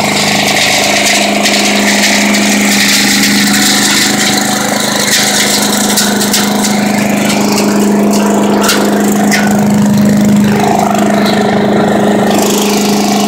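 Engine of a truck-mounted leaf vacuum running at a steady speed: a loud, constant drone with a strong steady hum.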